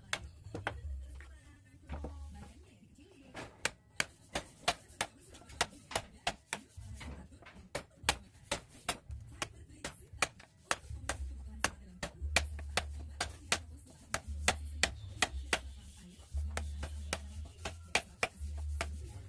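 A carpenter's wood chisel struck repeatedly as it pares curls off a timber: sharp knocks, a few a second, in runs with short pauses between them.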